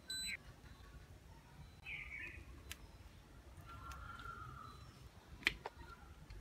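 Pliers working two copper wires as they are twisted together, giving a few faint clicks. The sharpest and loudest click comes about five and a half seconds in. Two faint short chirps sound in the background.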